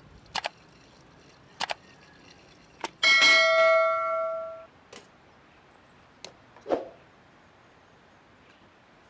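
Light clicks and knocks of metal parts being handled on a kerosene heater, and one sharp metallic clang about three seconds in that rings on like a bell for about a second and a half.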